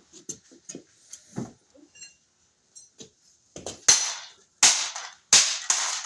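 Broken plastic toy pump shotgun being smashed: a few light knocks and rattles, then about two seconds in a run of five sharp, cracking blows in quick succession.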